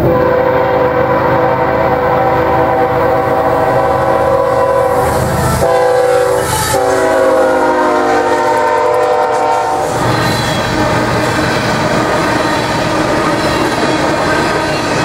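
BNSF GE ES44AC diesel locomotive sounding its multi-chime horn as it passes close by: a long blast, a short one and another long one whose pitch sags slightly as the locomotive goes by. The horn stops about ten seconds in, leaving the rumble and clatter of empty coal hopper cars rolling past on the rails.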